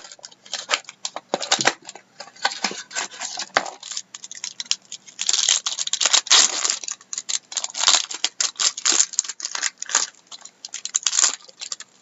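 Wrapper of a trading card pack crinkling and tearing in a run of irregular rustles as it is opened.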